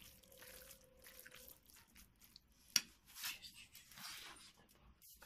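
A spoon stirring raw minced meat with diced onion in a glass bowl: soft, wet stirring and scraping noises, with one sharp clink of the spoon against the glass a little under three seconds in.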